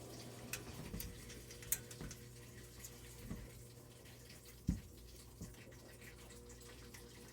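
A washing machine running a load of laundry, a faint steady hum with water sounds, while a few light clicks of metal tools tightening nuts on the shelf frame come every second or so.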